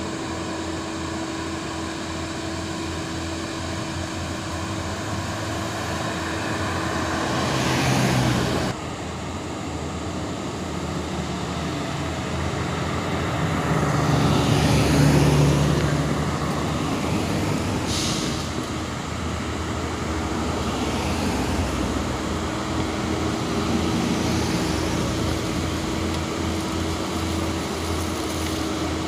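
Road traffic going by: engines of cars, motorcycles and heavy trucks, among them an Iveco truck towing a Renault truck, with a steady engine drone throughout. A vehicle passes close and loudest about halfway. The sound drops suddenly about nine seconds in, and there is one short sharp click a few seconds after the loudest pass.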